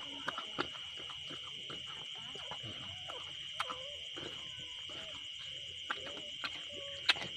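Mother dog eating the afterbirth and licking a newborn puppy: wet mouth clicks and smacks, a few sharp ones, the loudest near the end, with faint short squeaks from the newborn puppies, over a steady high-pitched trill of night insects.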